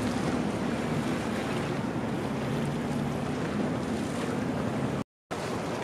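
Steady wash of sea water against a concrete seawall, with wind buffeting the microphone and a faint low hum underneath. The sound cuts out briefly about five seconds in.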